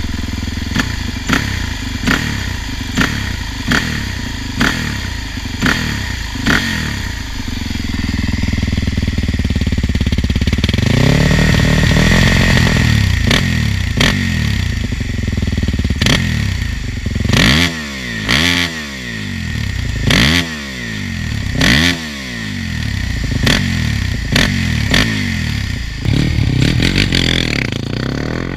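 A 2005 Suzuki DRZ400SM's single-cylinder four-stroke engine, just fitted with a rebuilt FCR39 carburettor and FMF Powercore 2 muffler, idling. Sharp throttle blips come about once a second at first. Then there is one longer rev, and then a string of quick revs up and back down.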